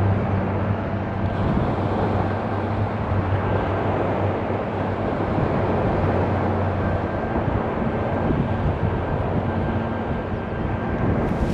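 De Havilland Canada DHC-6-300 Twin Otter's two Pratt & Whitney PT6A turboprops at takeoff power: a steady propeller drone over broad engine noise, with a thin high whine. The low propeller hum fades a little past midway as the aircraft lifts off and climbs away.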